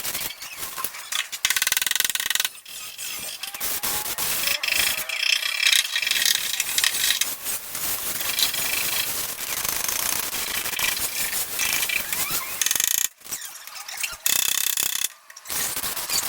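Welding on a Vespa scooter's steel body, the arc crackling and sputtering steadily, with two short breaks in the welding near the end.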